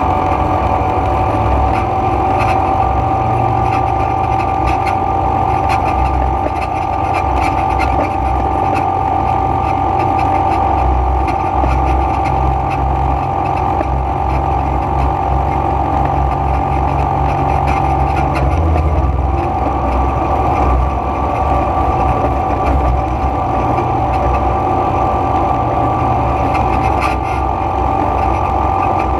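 ATV (quad bike) engine running steadily while riding along a dirt track, its steady drone over a low rumble, with a brief dip in engine note about two-thirds of the way through.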